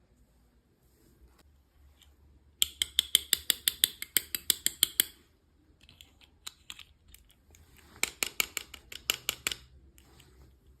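Two quick runs of sharp clicks, about seven a second: the first starts about two and a half seconds in and lasts about two and a half seconds, the second comes about eight seconds in and is shorter.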